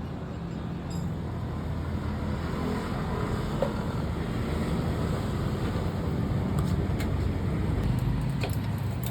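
Steady rumble of motor vehicle noise, with a few faint clicks in the second half.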